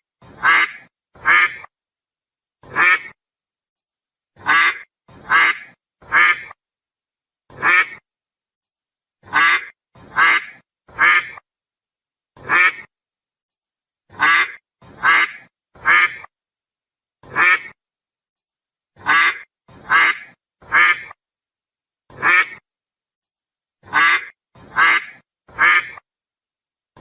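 Duck quacking in a repeating loop: three quick quacks followed by a single quack, the pattern coming round about every five seconds with silence between the calls.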